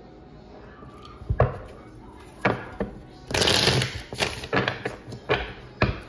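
Tarot cards being handled on a cloth-covered table: a string of separate taps and clicks, with a short rush of cards sliding against each other a little past the middle.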